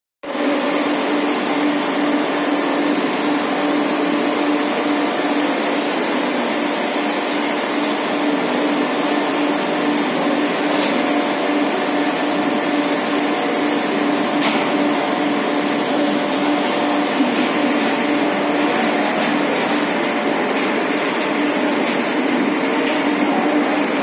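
Industrial conveyor parts-washing machine running: a steady whirring noise with a constant low hum throughout.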